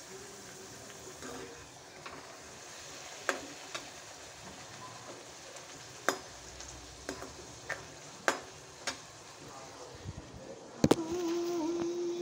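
Puri deep-frying in hot oil in a metal kadai, a steady sizzle, with sharp metal clinks of the slotted spoon against the pan several times and a louder clatter near the end.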